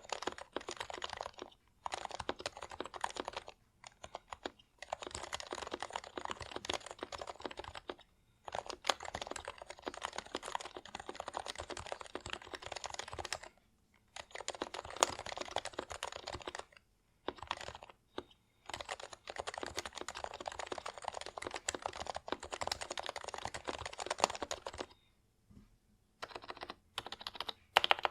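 Typing on an HHKB Hybrid Type-S keyboard with Topre capacitive switches fitted with HHKB Pro 2 domes, unlubed stock sliders and blank keycaps: fast runs of keystrokes broken by brief pauses every few seconds, slowing to separate strokes near the end.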